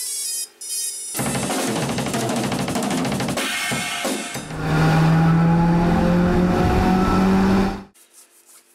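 Intro jingle with sound effects: two short electronic beeps, then a run of fast drum and cymbal hits, then a loud low sustained swell with slowly rising tones that cuts off suddenly about a second before the end.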